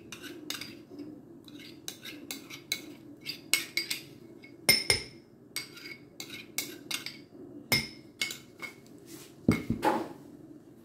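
A metal spoon scraping and clinking against a ceramic bowl as cake batter is scraped out into a smaller bowl, in many irregular clicks and scrapes. There is a louder clunk near the end.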